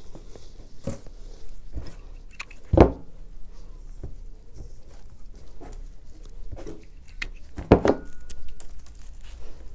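Fir branches rustling and crackling as sprigs are handled and pushed into floral foam, with two louder short knocks, about three seconds in and near the end.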